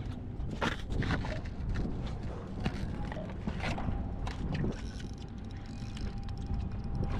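Wind buffeting the microphone on an open boat, a steady low rumble, with scattered knocks and clatter from handling gear on the deck.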